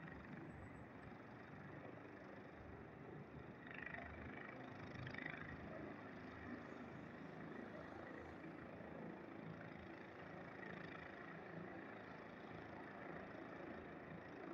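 Faint, steady distant engine noise with no clear rhythm.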